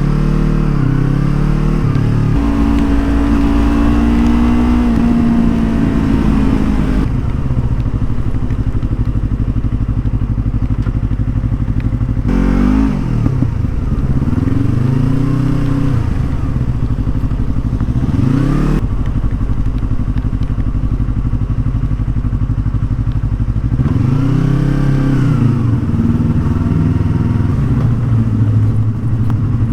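Yamaha R25 V2's parallel-twin engine running under way, the revs rising and falling several times as the bike accelerates and eases off.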